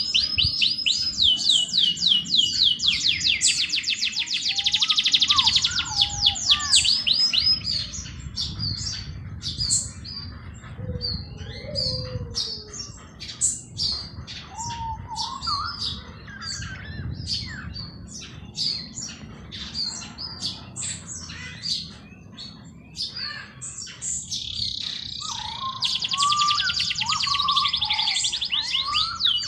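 Several songbirds singing: fast, high trills of rapidly repeated down-slurred notes near the start and again near the end, with scattered chirps and lower whistled phrases between them, over a low steady rumble.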